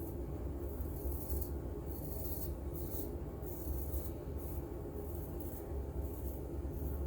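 Straight-edge razor scraping through lathered stubble in a series of short strokes, each a crisp high rasp, over a steady low hum.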